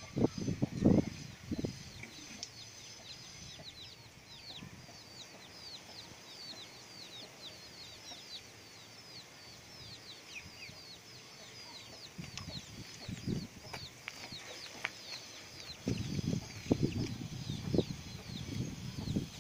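A bird chirping over most of the stretch: a steady run of high, quickly repeated descending chirps, two or three a second, fading out about two-thirds of the way in. Louder low rustling and thumps come near the start and again from about two-thirds in.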